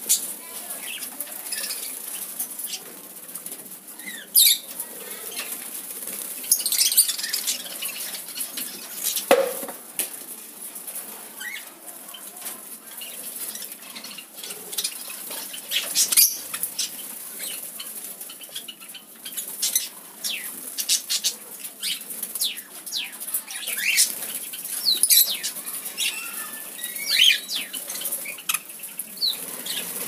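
Budgerigars flapping and fluttering their wings as they fly on and off a hand, with scattered sharp clicks and brief chirps.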